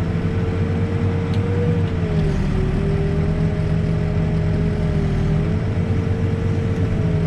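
Backhoe's diesel engine running steadily under load, with a whine that dips and rises slightly in pitch over the engine's drone.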